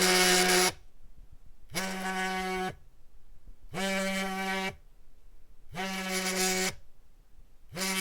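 Cell phone on vibrate, buzzing in bursts of about a second each, repeating every two seconds with quiet gaps between, in the pattern of an incoming call.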